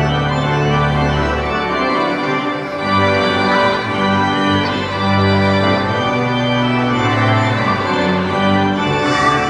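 Church organ playing a slow piece of held chords over a bass line that moves every second or two.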